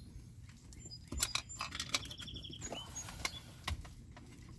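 Hand tools and small parts being handled during car repair work: scattered sharp clicks and taps with a few brief high-pitched squeaks, one slightly rattling, near the middle.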